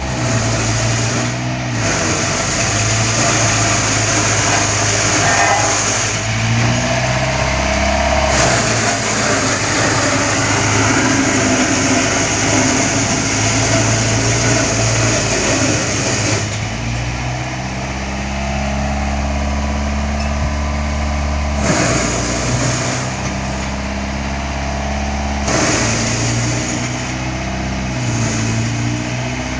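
Heavy vehicle's engine running steadily, its pitch and loudness shifting abruptly every few seconds.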